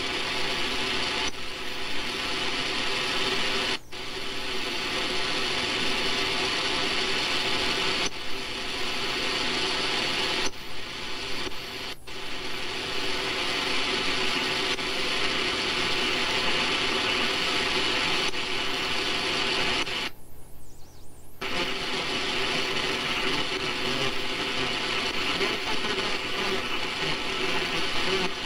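Shortwave receiver audio from an SDRplay RSPdx scanning stations near 7.3 MHz: steady static and hiss with faint signals under it. It cuts out briefly a few times as the scanner stops on a new frequency, once for over a second about twenty seconds in.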